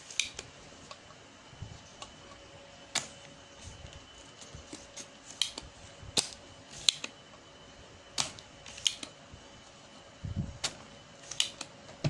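Spring-loaded desoldering pump (solder sucker) being cocked and fired while solder is melted off a circuit board, giving about ten sharp clicks and snaps at uneven intervals. There is a short low thump about ten seconds in.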